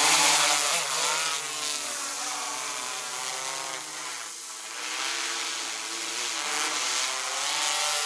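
DJI Matrice 210 quadcopter's rotors whining as it takes off and climbs, the pitch rising and falling as the motors speed up and slow down. Loudest near the start, with a brief dip about four seconds in.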